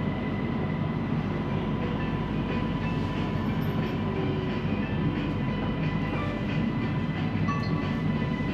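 Siemens Inspiro metro train heard from inside the carriage while running: a steady rolling rumble from the wheels and running gear, with a faint constant high tone.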